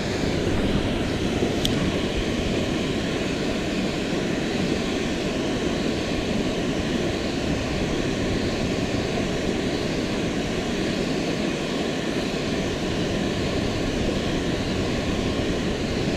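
Steady rushing of water pouring through the dam's gates into the river below, an even, unbroken roar. A single light click is heard about two seconds in.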